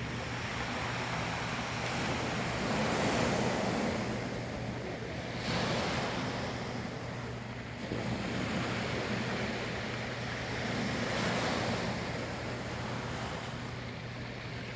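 Sea waves breaking and washing in, swelling and ebbing every few seconds, with one wave crashing more sharply about five and a half seconds in.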